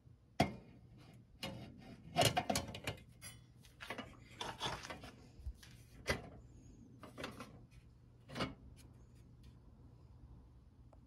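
Metal parts of a nickel-plated pressure stove being handled: a series of irregular clicks, clinks and knocks as pieces are lifted, fitted and set down, busiest a couple of seconds in.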